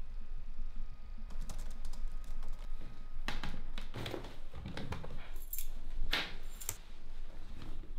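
A run of irregular clicks and knocks from things being handled, with finer clicks early and several louder knocks between about three and seven seconds in.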